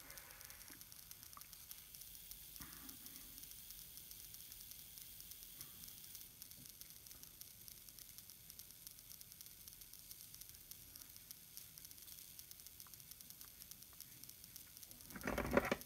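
Faint steady hiss of room tone with a few soft, faint handling noises while a plastic part is screwed onto an air cylinder by hand; a brief louder noise near the end.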